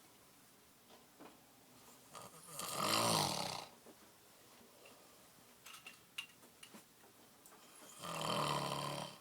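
A sleeping person snoring heavily: two long snores, each about a second, roughly five seconds apart, with a few faint clicks and snuffles between them.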